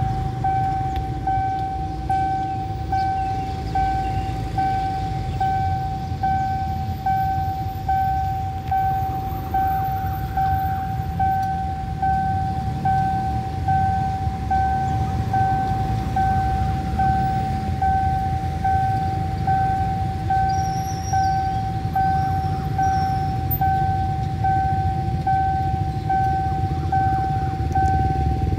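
Railway level-crossing warning alarm sounding a steady electronic tone that pulses about twice a second, over a low rumble.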